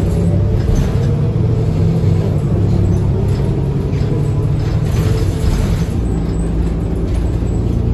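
Inside a New Flyer XD40 diesel bus: the engine runs with a steady low drone, with scattered faint rattles and creaks from the body.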